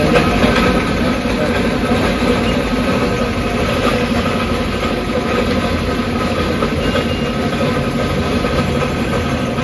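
Loud, steady machinery drone with several constant humming tones through it, unchanging in level.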